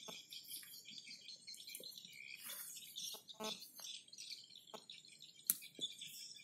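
Birds and insects chirping continuously, a dense high chorus, over scattered knocks, clicks and rustles of a tent's poles and fabric being handled, with one sharp click about five and a half seconds in.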